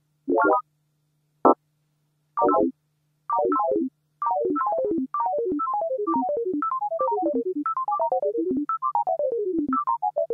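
Synthesized electronic tones from a Pure Data pendulum simulation, one short note per pendulum swing, following a pendulum-wave demonstration. The notes come in quick sweeps across about fifteen pitches. They strike almost together about a second and a half in, then run in falling cascades that get longer and more spread out as the pendulums fall out of step.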